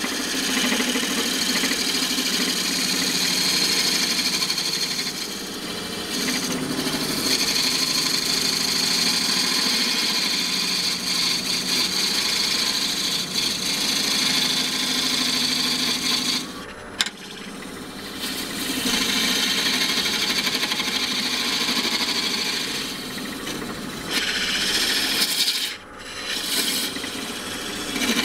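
Parting tool cutting into a wood blank spinning on a lathe, a continuous scraping hiss of the cut. The cut breaks off briefly twice, about two-thirds of the way in and again near the end.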